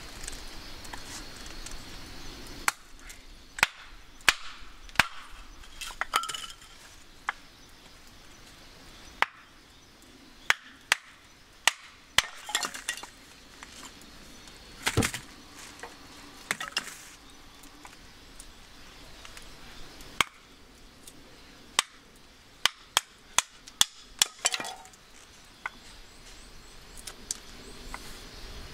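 Hatchet blade chopping and shaving a square wooden stick: sharp separate cracks of the blade biting the wood and chips splitting off, at irregular intervals with several quick clusters. The stick is being rough-carved into cooking chopsticks.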